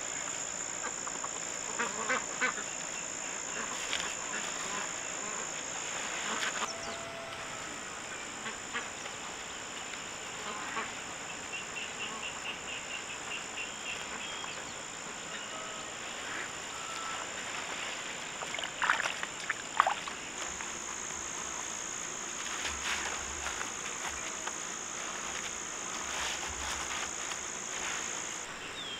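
Scattered short animal calls over a steady high-pitched drone, with a few sharper, louder calls about two seconds in and again around two-thirds of the way through.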